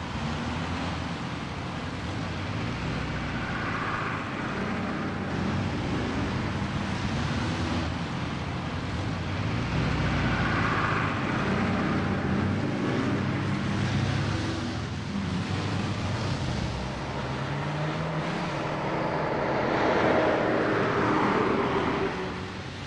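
City street traffic: motor vehicle engines running, with vehicles passing in swells about 4, 11 and 20 seconds in.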